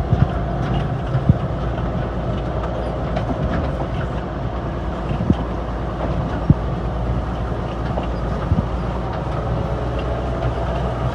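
Diesel farm machinery running steadily, with a low engine drone and occasional sharp clanks and rattles.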